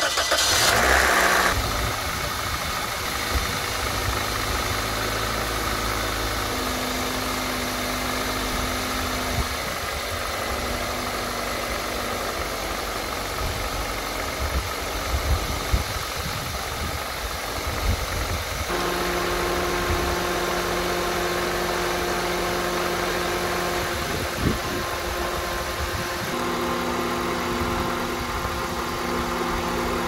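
2003–2006 Toyota Corolla's four-cylinder engine starting, with a short louder burst as it catches, then idling steadily with the A/C switched on so the newly fitted compressor can draw in the rest of the refrigerant. About two-thirds of the way through, the pitch of the steady running changes to a new note.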